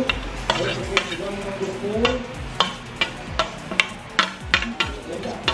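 A metal spoon scraping and knocking against a stainless steel plate as chopped vegetables are pushed off it into a ceramic bowl. It makes a series of irregular sharp clinks.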